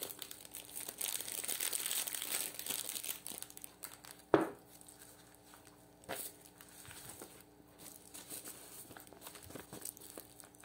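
Disposable plastic glove and cellophane tea bag crinkling while being handled, densest for the first few seconds. A single sharp tap about four seconds in, then quieter rustling with a few soft clicks.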